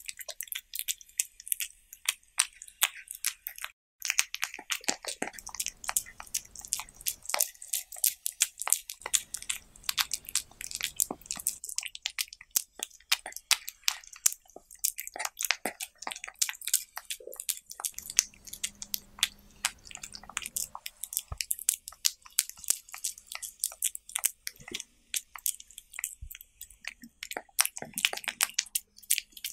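A cat chewing and crunching diced cucumber and tomato close to the microphone: a dense run of quick, wet crunches and clicks, with a brief break about four seconds in.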